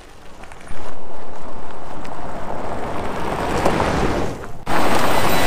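Motor vehicles driving past close by on a gravel road, heard as a loud rushing noise of tyres and wind on the microphone. The noise starts abruptly about a second in, and after a short break near the end it comes back louder as a second vehicle passes.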